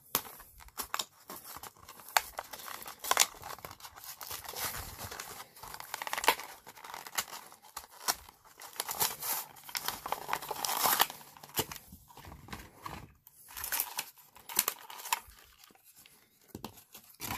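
A clear plastic blister being torn off its cardboard backing card to open a carded action figure: crinkling plastic and ripping in irregular bursts, with a louder stretch of tearing about nine to eleven seconds in.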